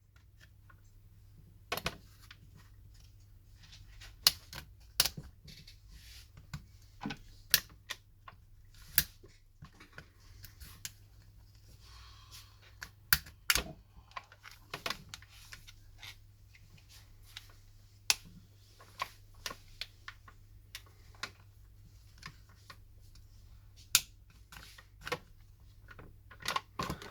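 Irregular sharp plastic clicks and snaps as the LG Optimus L90 smartphone's back cover is pried off with a plastic opening tool, its clips popping loose, over a faint steady low hum.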